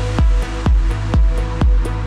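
Background electronic dance music: a steady kick drum about twice a second over a low bass line.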